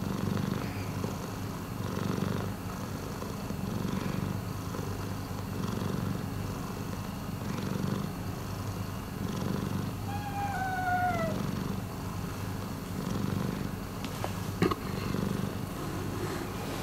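Long-haired domestic cat purring steadily, the low rumble swelling and fading in a slow rhythm about every two seconds. A short falling tone comes about ten seconds in, and a single sharp click a couple of seconds before the end.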